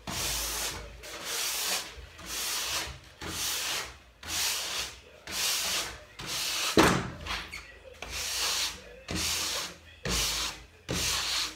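Nylon brush scrubbing along a snowboard base in about eleven even strokes, roughly one a second, brushing old wax out of the base structure.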